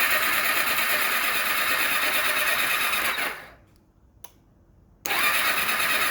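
1991 Kawasaki ZXR750's inline-four being turned over by its electric starter, cranking in two spells: about three seconds, a pause, then again about five seconds in. With injectors and coils disconnected, the engine spins without firing.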